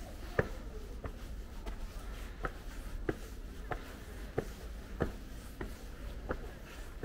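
Footsteps walking at an even pace, about three steps every two seconds, each step a short sharp click, over a steady low background rumble.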